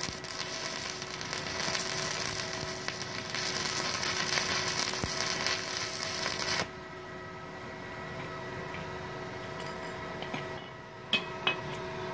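Stick-welding arc from a Multipro EG 200A SC inverter welder crackling and sizzling as the electrode burns. It stops suddenly a little past halfway, leaving a steady hum, and two sharp knocks come near the end.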